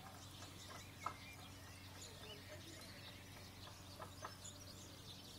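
Faint birds calling through the open window, as small chirps, over a steady low hum. A sharp click comes about a second in, and two softer clicks come near four seconds.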